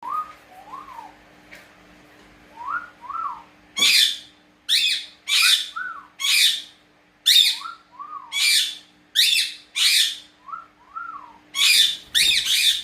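Pet parrots giving loud, harsh screeching calls, about ten in a row from about four seconds in. Between them come soft whistles that rise and fall, mostly in pairs.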